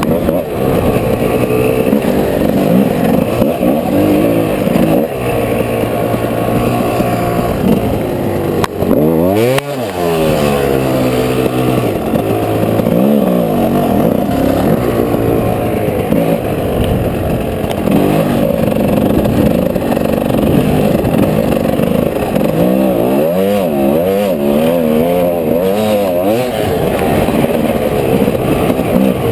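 Gas Gas enduro dirt bike engine running under load in soft sand, its revs rising and falling again and again; about nine seconds in the revs drop sharply and climb back up.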